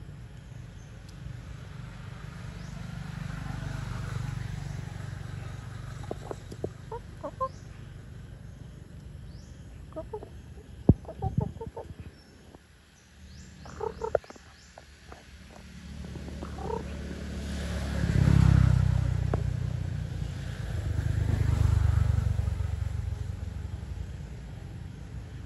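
Chickens giving short, soft clucks over a low rumble that swells and fades three times, loudest about two-thirds of the way in.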